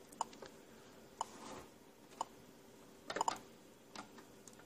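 Faint, short ticks from the fast clock's small speaker, one each real second, the same clicks that the WWV time signal uses. A quick cluster of several clicks comes a little past three seconds in.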